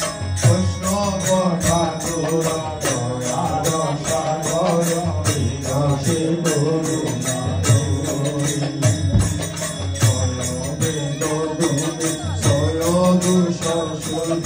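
Men singing a devotional bhajan into microphones, over sustained harmonium chords. A steady jingling metal beat keeps time, several strokes a second.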